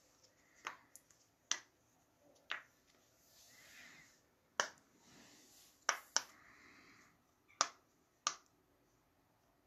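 Silicone push-pop fidget toy bubbles being pressed through with a finger: about nine sharp pops at uneven intervals, a couple in quick pairs, with faint rustling between.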